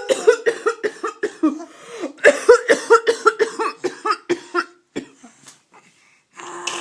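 A baby laughing in quick, high-pitched bursts, mixed with an adult's coughs; the giggling stops about four and a half seconds in.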